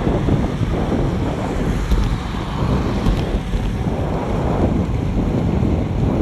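Loud, steady wind rumble on the microphone of a bike-mounted action camera riding at about 35 km/h.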